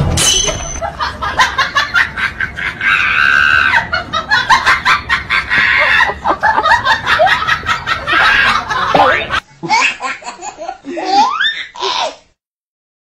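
People laughing hard in rapid ha-ha bursts. About nine seconds in the sound changes to higher laughter and squeals that rise in pitch, then cuts off abruptly about a second before the end.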